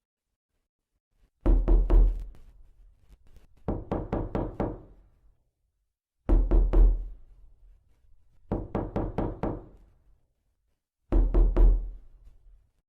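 Knocking on a door: five bursts of about four or five quick raps each, with a solid low thud to each rap. A louder burst alternates with a softer one.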